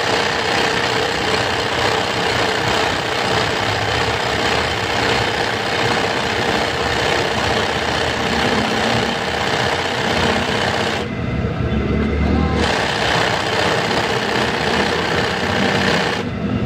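Manual sewing machine running fast, its needle stitching through cotton fabric. It stops for about a second and a half around eleven seconds in, then runs again until just before the end.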